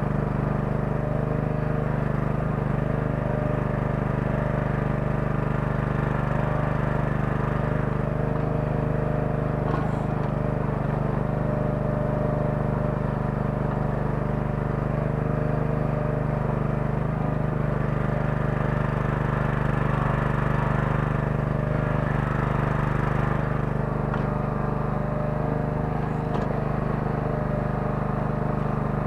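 Small 9 hp engine of a towable mini excavator running steadily under load as it digs, an even drone with a few faint clicks near the middle and towards the end.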